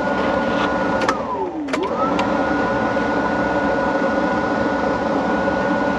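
Steady mechanical hum of a running motor with a clear high whine. About a second in, after a click, the whine's pitch drops steeply; after a second click it climbs back up to its steady pitch, as if the motor briefly slowed and then recovered.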